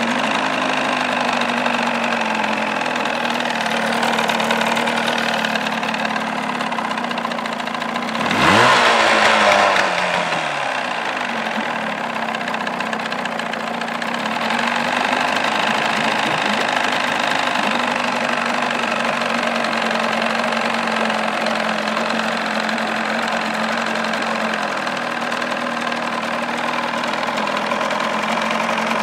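1979 Evinrude 35 hp two-stroke outboard motor, cowling off, running steadily at idle while it warms up in a test tank. About eight seconds in there is a brief louder surge, and its pitch falls away over a couple of seconds.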